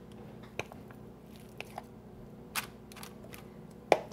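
A fork working in a plastic tub, lifting wet seaweed out onto a plate: scattered light clicks and taps with soft squishing, the loudest knock near the end. A faint steady hum runs underneath.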